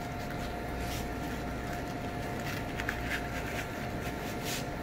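Faint scraping of a fillet knife sliding between the skin and flesh of a snapper fillet on a plastic cutting board, in a few soft strokes, over a steady background hum.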